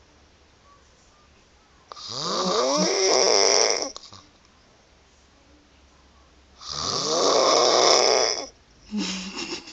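A woman snoring in her sleep: two long snores of about two seconds each, a few seconds apart, each beginning with a rising pitch, then a shorter snore near the end.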